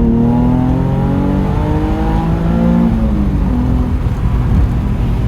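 Nissan 350Z's VQ35HR 3.5-litre V6 pulling hard: its pitch drops right at the start, climbs steadily for about three seconds, then falls and holds steady.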